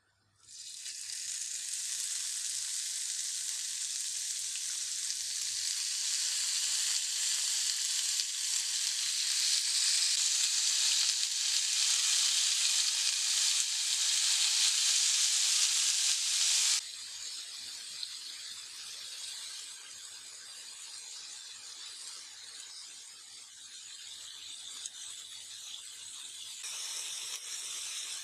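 Marinated chicken skewers sizzling on a hot grill pan. The sizzle starts sharply as the first skewer goes down, grows slowly louder as more are laid on, and drops suddenly to a quieter sizzle about two-thirds of the way through.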